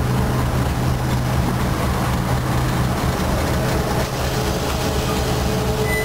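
D12E diesel locomotive running, heard from inside its cab: a steady, loud low engine drone with running noise, a faint whine coming in about two-thirds of the way through.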